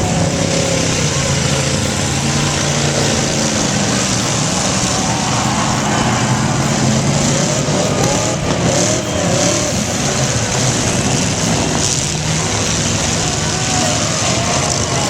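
Several demolition derby cars running at once, engines revving up and down over and over in a dense, loud din.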